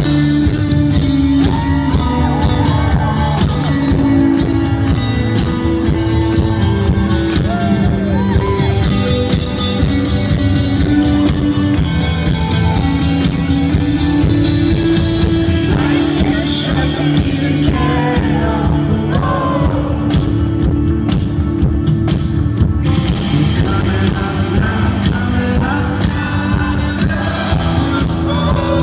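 Live rock band playing, with a sung lead vocal over electric guitars, bass and steady drums.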